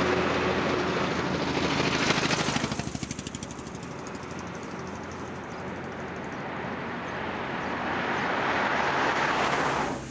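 Vehicles passing on a road: a loud rushing noise that fades after about three seconds, then a second one builds up and cuts off sharply at the end, over a low steady hum.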